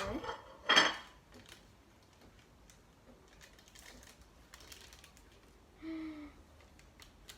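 A plate and cutlery clinking sharply twice near the start, then faint scattered clicks and taps of a knife working through a cake. A brief pitched sound comes about six seconds in.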